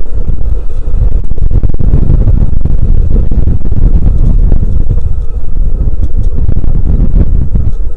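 Strong wind buffeting an outdoor camera microphone: a loud, continuous low rumble.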